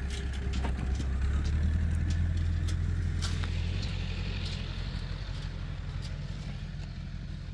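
Tractor engine running steadily with a low hum, its note dropping a little about two seconds in and then slowly fading, with scattered clicks and rattles.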